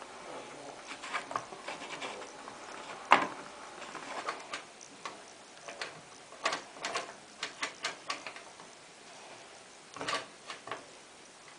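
Beko washing machine's programme selector dial being turned, clicking through its positions in irregular runs of sharp clicks, with one louder knock about three seconds in.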